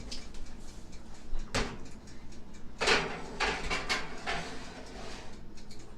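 Oven door and cake pan being handled as the pan goes into the oven: a sharp knock about one and a half seconds in, a louder knock or clatter near three seconds, then lighter rattling.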